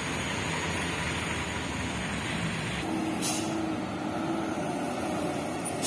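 Road traffic going by: cars and trucks passing with their engines running, and a short high hiss about three seconds in.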